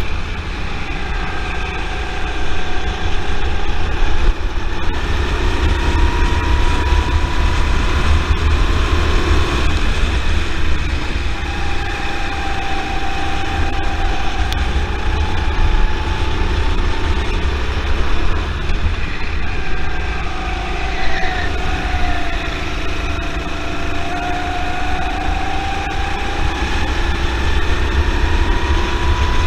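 Rental kart's Honda engine heard onboard at racing speed, its pitch slowly rising and falling as the throttle is worked, over a heavy low rumble of wind on the microphone.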